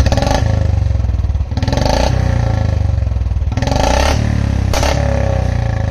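Royal Enfield Standard 350 BS4, a carbureted single-cylinder engine, running through an aftermarket long Punjab exhaust. It is blipped several times in short bursts, dropping back each time to a low idle.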